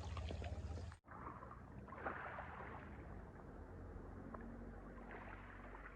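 Faint sea water lapping and sloshing with a few small knocks, broken by an abrupt cut about a second in, after which it goes on more quietly.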